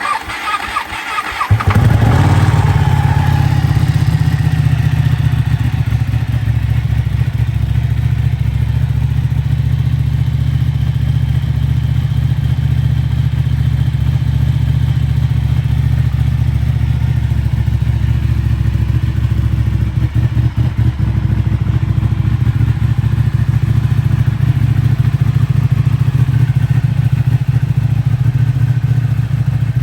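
Ducati Panigale 1199's L-twin engine, breathing through a Termignoni exhaust, cranks on the starter and catches about a second and a half in. It then settles into a loud, steady idle.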